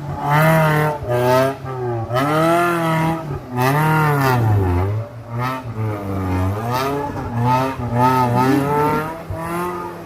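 Off-road 4x4's engine revving hard, its pitch rising and falling again and again about once a second.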